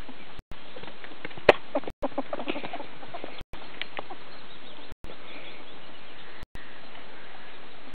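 Ferrets dooking: short clucking chuckles as they play, bunched in the first half, with a sharp click about a second and a half in. A steady hiss underneath drops out briefly every second and a half or so.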